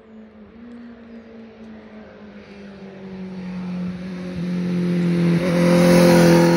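2019 Honda CBR650R's inline four-cylinder engine, heard through an SC-Project SC1-R exhaust with its dB killer fitted, approaching at a steady pitch and growing steadily louder until it passes close near the end.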